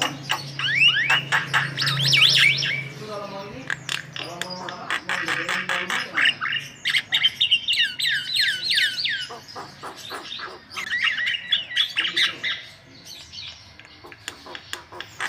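Javan myna (jalak kebo) singing continuously: a busy mix of sharp clicks, rattles and groups of quick falling whistles.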